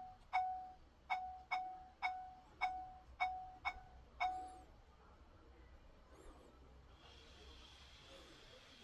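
Digital smart door lock's keypad beeping as buttons are pressed: about eight short single-tone beeps at an uneven, typing pace, each fading quickly. They stop about four and a half seconds in.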